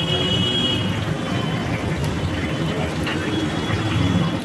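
Momos deep-frying in a wire fryer basket, the oil bubbling steadily, under a constant low hum of street noise and voices. A brief high squeal sounds in the first second.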